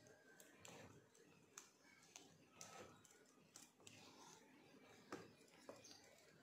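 Faint, wet squelching of thick Mysore bonda batter being beaten and kneaded by hand in a bowl, with irregular soft clicks scattered through it.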